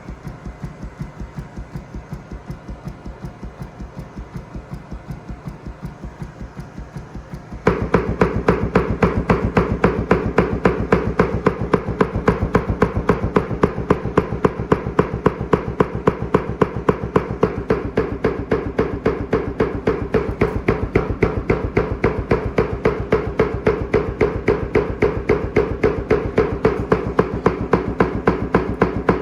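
Subwoofer driven open air by a very low test tone from a phone frequency generator, its cone moving in big strokes and knocking about four times a second. The knocks get much louder about eight seconds in.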